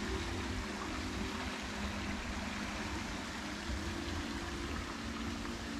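Motorbike engine running at a steady speed, a low even hum under a constant rushing of wind and tyre noise.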